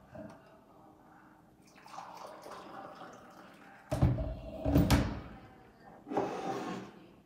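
Hot water poured from an electric kettle into a mug, with two loud knocks as the kettle is handled and set back down on its base. Shortly after, a brief splash as water is tipped from the mug into a glass.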